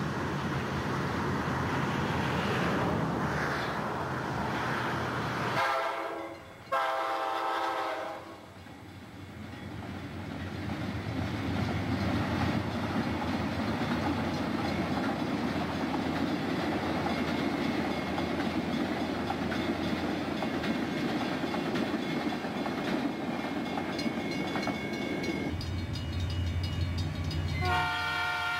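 Amtrak diesel locomotive horn blowing about six seconds in, then the steady rumble of the passenger train rolling past. Near the end a second train horn starts up, from an approaching Southern Pacific freight locomotive.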